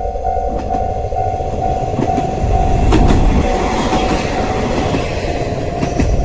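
A train running past a Japanese railroad crossing, its wheels clacking and rumbling on the rails, while the crossing's warning bell rings in a steady, repeating kan-kan tone.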